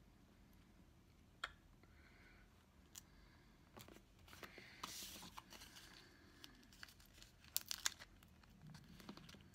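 Faint handling of paper planner stickers being placed and pressed onto the planner pages: light rustling and crinkling of paper with a few sharp light clicks, a short rustle about halfway through and a cluster of clicks near the end.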